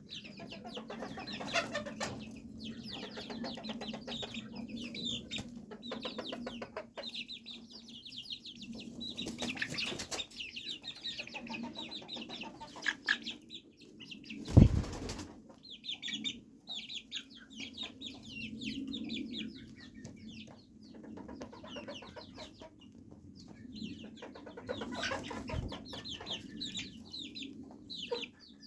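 Chicks peeping in quick, high cheeps over low chicken clucking as they settle for the night. A loud thump about halfway through, and a softer one later.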